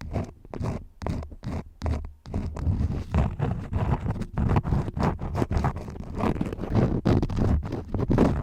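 Crayons scribbling in quick, repeated scratchy strokes, several a second, with brief pauses near the start.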